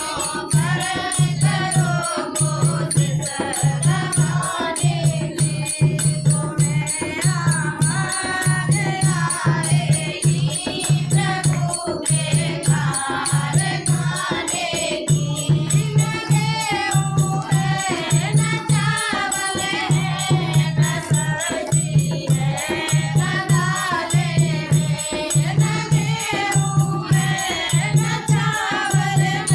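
A group of women singing a Hindi devotional bhajan together, over a steady low drum beat and rattling percussion.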